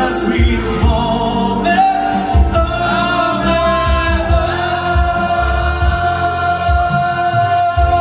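A man singing live into a microphone over instrumental accompaniment, rising into one long held note that lasts through the second half.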